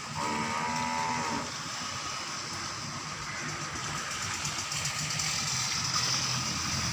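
A cow moos once, for about a second, near the start, over a steady hiss that grows stronger in the second half.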